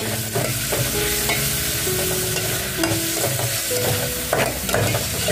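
Onions, whole spices and ginger-garlic paste sizzling in hot oil in a metal pot while a metal spoon stirs and scrapes them, with frequent short clinks of the spoon against the pot. This is the bhuno stage, frying the masala.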